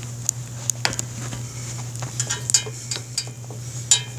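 Irregular light clicks and taps from handling a homemade zip-tie dipstick and a flashlight at a motorcycle's open oil filler neck, over a steady low hum.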